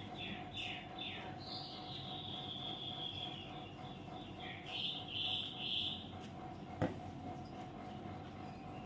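Sooty-headed bulbul calling: a few quick falling chirps, then a long whistled note, then a short run of louder notes. A single sharp click comes about seven seconds in.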